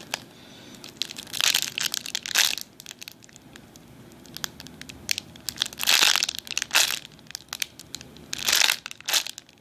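Crinkling plastic packaging as a foam squishy toy in its bag is handled and squeezed, in a few separate bursts with scattered small clicks.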